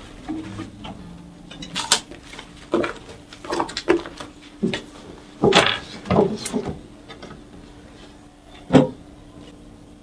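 A string of sharp knocks and thuds of objects being struck and banged around a small room, irregular over several seconds, with one last louder knock near the end.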